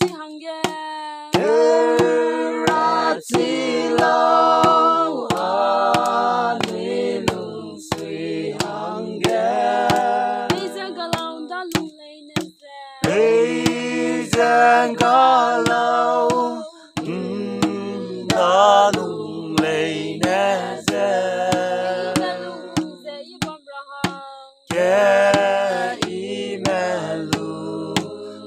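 A group of men and women singing a song together in phrases with short breaks, over a steady beat of sharp taps, about one and a half a second.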